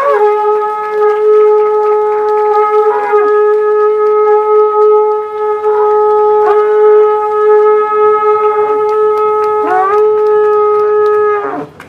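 A blown horn sounding one long, steady, loud note, wavering slightly, with a brief upward slide in pitch near the end before it stops suddenly.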